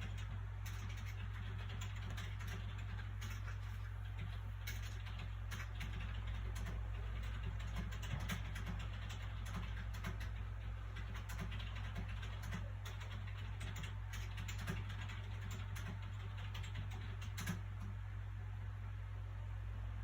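Soft paper sounds from a book being handled: scattered small clicks and rustles over a steady low hum of background noise.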